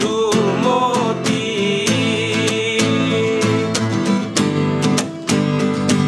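Two acoustic guitars strummed while men sing a melody. The singing drops out about three seconds in and the guitars carry on strumming.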